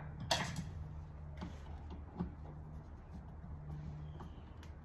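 Small handling noises of a stripped copper wire being fed into a circuit breaker's terminal: a short scrape about a third of a second in, then a few light clicks, over a steady low hum.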